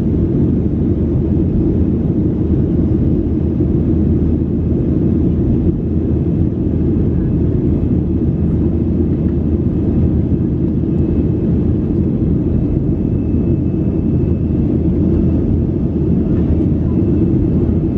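Steady low cabin drone of a Boeing 737-800 in flight: engine and airflow noise heard inside the passenger cabin, even and unchanging, with most of its weight in the low end.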